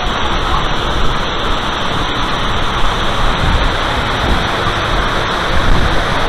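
Steady rushing of water from the course's artificial waterfall, a constant loud wash with no breaks.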